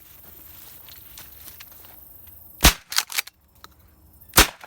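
Two loud shotgun shots about a second and a half apart, fired at passing doves, with a couple of fainter cracks between them.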